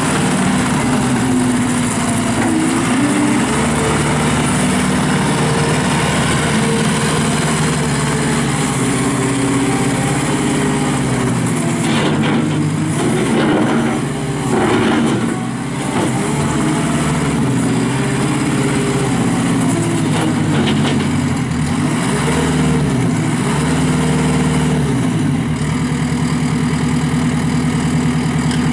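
JCB 260T Eco tracked skid steer's diesel engine running steadily. About halfway there is a brief dip with a few clanks, and in the second half the pitch swings up and down several times as the machine works.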